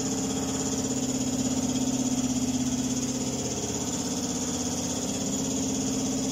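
Air compressor running steadily, a constant motor hum with a faint steady hiss above it, supplying the spray gun during painting.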